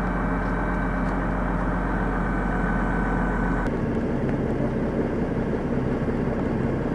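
Boom truck's engine running steadily, a low hum with a faint held whine above it. The sound changes abruptly a little past halfway through and then runs on steadily.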